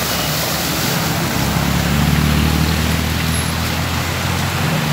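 Cars driving slowly through a flooded street, their tyres splashing through standing water over a steady wash of water noise. A car engine running close by grows louder from about a second and a half in.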